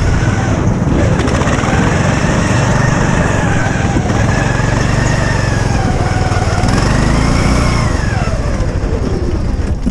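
Lawn mower engine running steadily, its pitch slowly rising and falling as the speed changes.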